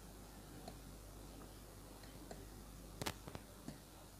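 Soldering work on an amplifier circuit board: faint background hiss with a few sharp clicks and taps about three seconds in, as the soldering iron and fingers touch the board and component leads.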